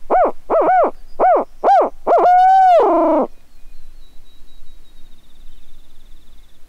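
Barred owl hooter, a mouth-blown owl locator call: five quick hoots, then one long drawn-out hoot that falls off at the end, in the rhythm of a barred owl's "who cooks for you". It is blown to shock a turkey gobbler into gobbling.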